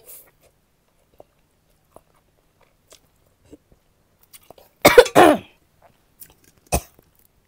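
A woman coughing hard, once in a loud fit about five seconds in and again briefly near the end: spicy food has gone down the wrong way and is burning her throat. Faint chewing and mouth sounds come before the coughs.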